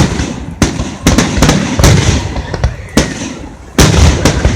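Fireworks exploding: a string of sharp bangs, roughly two a second and uneven in spacing, each trailing into a low rumble.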